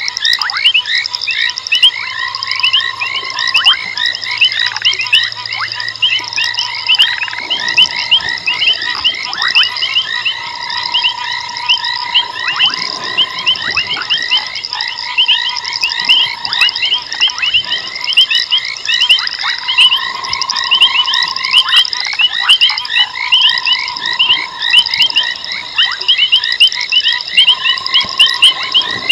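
A dense night chorus of frogs: many short, high chirping calls overlapping without pause, with a longer, lower note held for about a second that recurs every couple of seconds.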